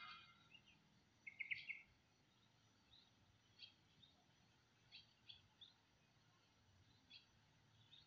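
Yellow-vented bulbul (trucukan) giving faint short chirps. A quick run of several notes comes about one and a half seconds in, the loudest part, then single chirps every second or so.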